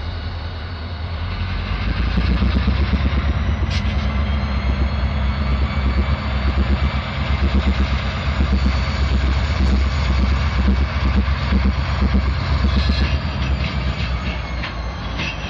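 Two Norfolk Southern diesel locomotives working a yard move: their engines' low rumble rises about two seconds in as they throttle up, then holds steady as the units roll.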